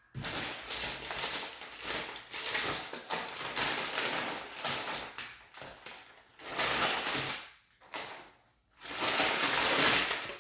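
Paper fast-food packaging crinkling and rustling close to the microphone, in irregular stretches, with a brief pause about eight seconds in.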